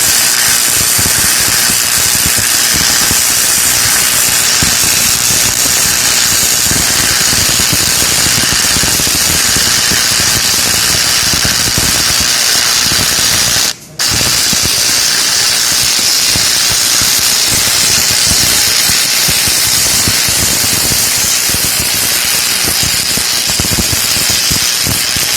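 Electric arc welding on steel: the steady crackling hiss of the arc as a bead is laid. It breaks off for a moment about halfway through, then strikes up again.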